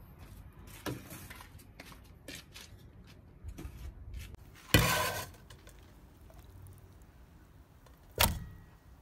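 Handling noises around an aluminium cooking pot: light knocks and clicks, then a short loud burst of tap water running into the pot about halfway through. Near the end comes a single heavy thud as a whole raw chicken goes into the pot.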